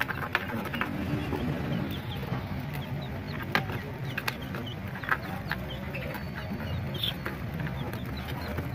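Baby chicks peeping in many short, high chirps, with scattered sharp clicks and a steady low hum underneath.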